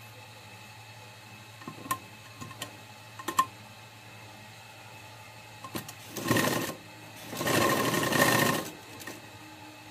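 Sewing machine stitching a zip onto fabric in two short runs, one about six seconds in and a longer one a second later. A few sharp clicks come before them, over a steady low hum.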